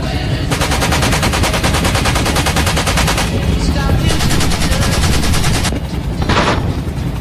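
Door-mounted M60 machine gun on a UH-1B Huey firing two long bursts of rapid fire, then a short burst near the end. The helicopter's steady low rumble runs underneath.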